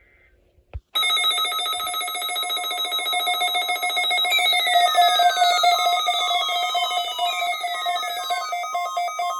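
Several weather radio receivers sounding their alert alarms together, set off by the NOAA Weather Radio Required Weekly Test. A loud, rapidly pulsing electronic beeping starts suddenly about a second in. Several tones overlap, and falling sweeps run over them in the middle.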